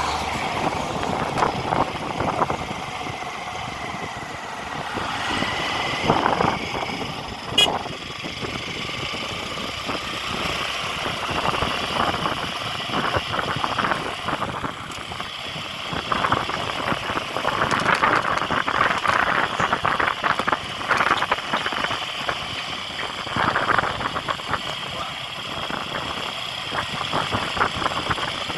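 Motor vehicle engines running, the level rising and falling unevenly.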